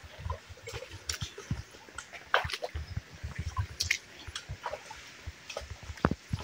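Shallow rocky creek gurgling over stones, with irregular drips and small splashes.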